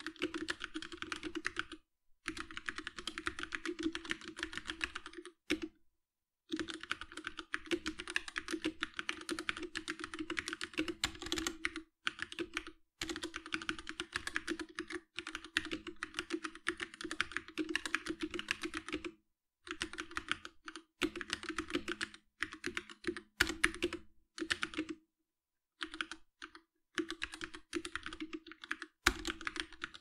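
Typing on a GMMK TKL mechanical keyboard with Gateron Red linear switches: dense runs of rapid keystroke clacks, broken by several short pauses of about a second.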